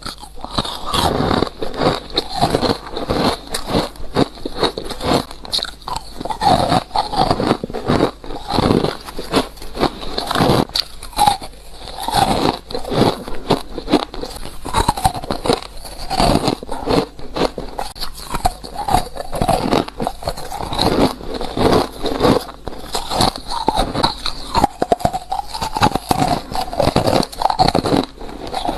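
Ice being bitten and crunched between the teeth: a continuous run of sharp, crackling crunches, one close after another, with no pause.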